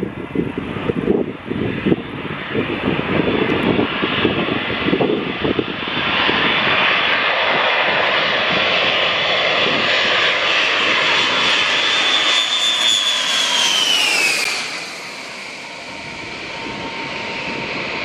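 Boeing E-3 Sentry AWACS jet flying close past, its four turbofan engines loud and steady, with a high whine that falls in pitch as it goes by, after which the noise drops away. Wind buffets the microphone in the first few seconds.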